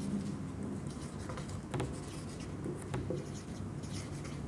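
Dry-erase marker writing on a whiteboard: a run of short, scratchy strokes as letters are written.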